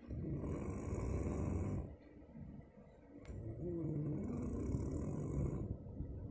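A person snoring in deep sleep: two long, rough snores of about two seconds each, separated by a quieter breath. The second snore carries a clearer pitched tone.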